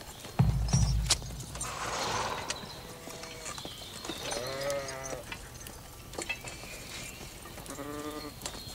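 Sheep bleating several times, short wavering calls, the clearest about halfway through and again near the end, with a few heavy low thumps about half a second in.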